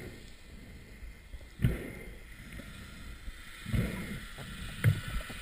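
Underwater water noise: a low hiss with muffled whooshing surges about one and a half and four seconds in, and a sharp knock near the end.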